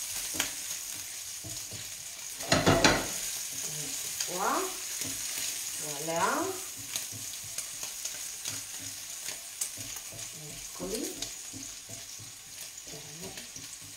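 Diced guanciale sizzling in a frying pan as its fat renders and it browns toward crisp, stirred and scraped with a wooden spoon. A loud clatter about three seconds in.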